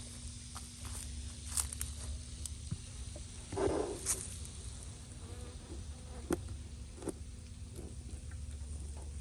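Honeybees buzzing around a hive in a steady hum, with scattered light clicks and a brief rustle about three and a half seconds in.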